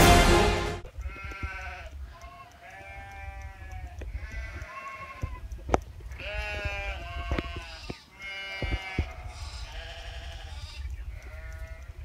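Feral goats bleating, about ten wavering calls one after another from the herd, with a steady low rumble beneath and a single sharp click near the middle.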